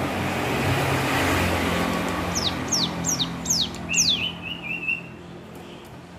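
Ciblek gunung, a prinia, singing one short phrase about two seconds in: about five quick high whistles, each falling in pitch, then a brief buzzy trill. A young bird practising its song. A low rumble with a hiss runs underneath in the first half.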